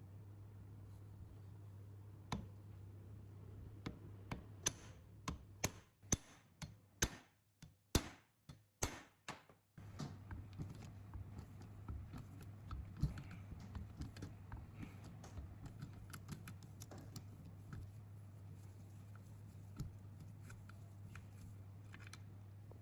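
Sharp clicks and light metallic taps from hands working on small engine parts and tools, with a quick run of louder clicks from about four to ten seconds in, then scattered softer ticks. A steady low hum runs underneath.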